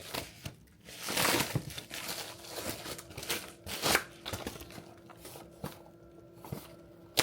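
Crinkly packaging being handled and torn open while unwrapping a packed part, in bursts of rustling that are loudest in the first half, then a few light clicks and rustles.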